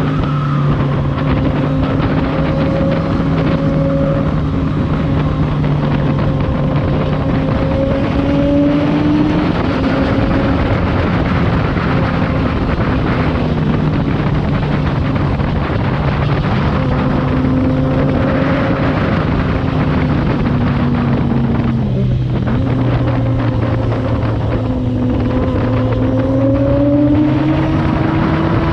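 Kawasaki Z1000R's inline-four engine running under way at a steady cruise. Its pitch climbs as it accelerates about eight seconds in and again near the end, and dips briefly around twenty-two seconds in as the throttle comes off. A steady rushing noise lies underneath.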